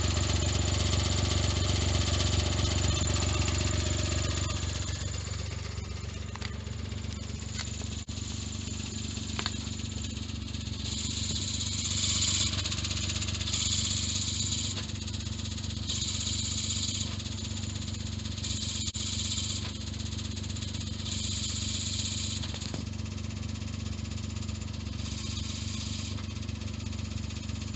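Suzuki Jimny JB23 engine running with a loud rattling grind from the clutch for the first four seconds or so. It then settles to a quieter idle, with a high, hissing scrape that comes and goes every couple of seconds. It is the abnormal noise of a worn clutch at 170,000 km, which the owner suspects comes from the clutch disc or pressure plate, with the release bearing perhaps gone too.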